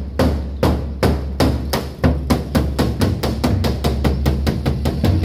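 Khmer pagoda drum beaten by a monk with single strokes that speed up steadily, from about two a second to about five a second. The drumming calls the dead man's soul into the pagoda.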